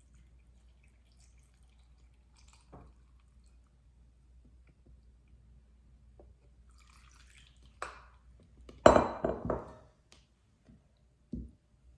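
Kitchenware being handled: a light clink early, then a brief clatter of several quick knocks and clinks about nine seconds in, and a single knock near the end.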